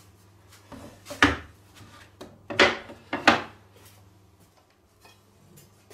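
Three 25 mm thick wooden boards set down on a wooden work table: three loud wooden knocks, one a little over a second in and two close together near the middle, with a few lighter knocks and scrapes as they are placed.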